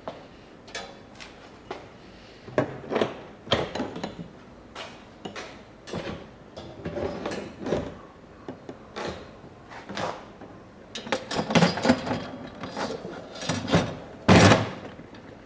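Irregular clicks, knocks and rattles from parts and tools being handled, coming in clusters, with the loudest knock near the end.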